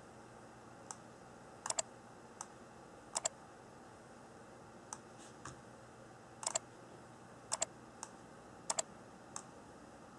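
Computer mouse button clicking: about ten short, sharp clicks spaced unevenly, several of them in quick pairs, over a faint steady hiss.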